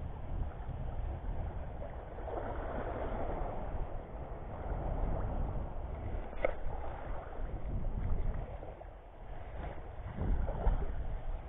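Wind rumbling on an action camera's microphone over the wash of shallow sea water, with one short sharp click near the middle.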